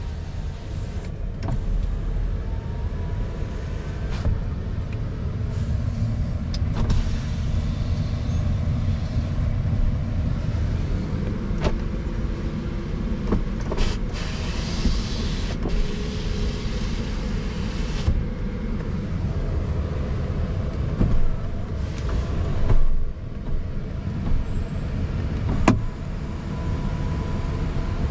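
Steady low rumble inside a pickup cab, with scattered clicks and a small electric motor whirring for about four seconds midway as the truck's power-operated glass moves.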